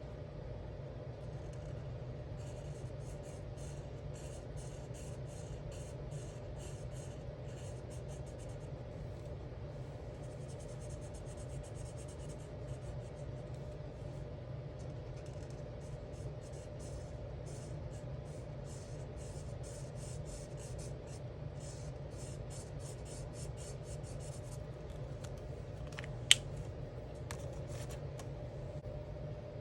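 Alcohol marker tip rubbing on coloring-book paper in runs of quick, short back-and-forth strokes, over a steady low hum. A single sharp click near the end.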